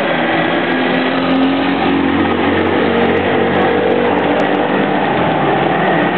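Small motorcycle engines running as the bikes ride through shallow floodwater on the road, over a steady wash of noise.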